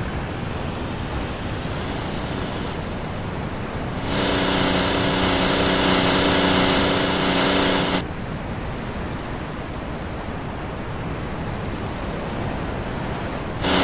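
Steady rushing noise of wind and water on a moving pump boat. About four seconds in, the boat's engine cuts in as a steady, even drone; it drops out abruptly at about eight seconds and returns right at the end.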